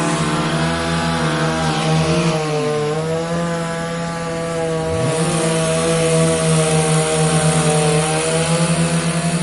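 Sound effects layered and pitched to stand in for the song's melody. A loud buzzing drone with many overtones and a fluttering low pulse carries it, its pitch sliding down and then back up around the middle.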